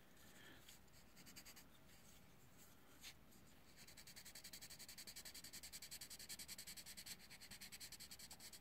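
Pink coloured pencil shading along the edge of a drawing on paper, pressed firmly to lay down a dark shadow line. The strokes are faint, quick and back-and-forth, several a second, and begin about four seconds in.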